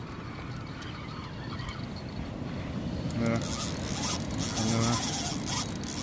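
Steady outdoor background noise, with two short voices calling out a little past halfway.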